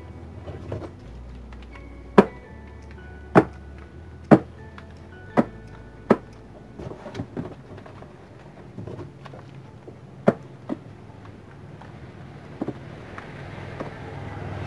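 Background music with held notes, over which come about six sharp knocks at uneven spacing: boxes of bar soap being set down on a shop shelf.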